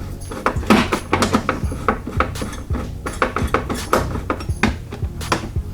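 Hand tools clinking on metal as the muffler's exhaust bolts are worked loose: a run of irregular sharp metallic clicks and knocks, several a second.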